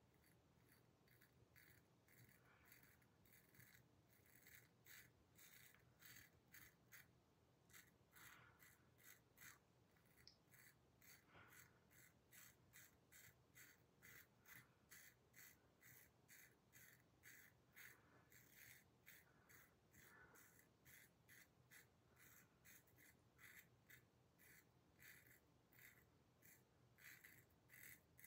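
Faint, short scraping strokes, about two a second, of a Kampfe Bros Star single-edge safety razor cutting stubble through lather with a freshly honed blade.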